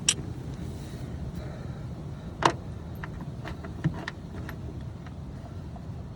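A few sharp clicks and knocks from hand work on the engine's coil pack and tools, the loudest about two and a half seconds in, over a steady low background rumble.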